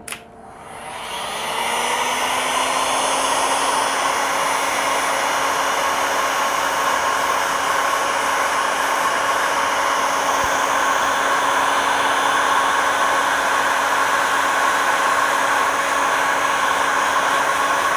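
Hot-air heat gun spinning up over the first second or two, then blowing steadily with a constant hum, shrinking heat-shrink tubing over soldered connector wires.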